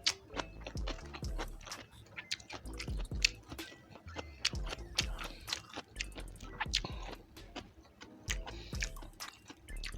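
Close-miked chewing and crunching of crispy pata, deep-fried pork knuckle with crackling skin: irregular crisp crunches and wet mouth sounds, several a second.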